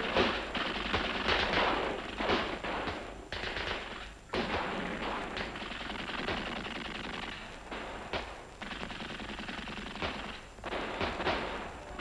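Gunfire in quick, irregular bursts, many shots close together.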